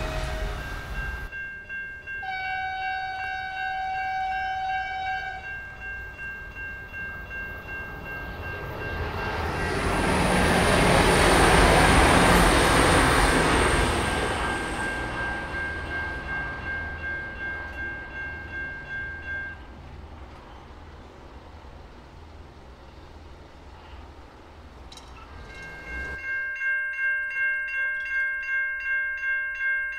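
V/Line VLocity diesel railcar sounds a brief horn and then passes, its noise swelling to loudest around twelve seconds in, while level crossing bells ring steadily. The bells stop, and near the end another crossing's bells start, pulsing about twice a second as the boom gates come down.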